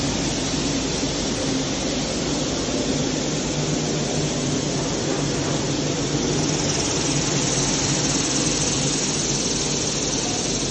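Fingerless oblique-type corrugation machine running at production speed: a loud, steady mechanical hum with low tones under a continuous hiss, the higher hiss growing stronger about six seconds in.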